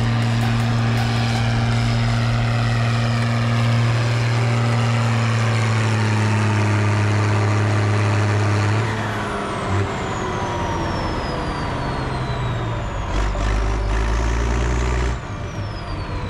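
International Harvester 1455 XL tractor's diesel engine running hard at high, steady revs while it drags a tractor-pulling sled. About nine seconds in the engine note drops and a high whine winds down in pitch.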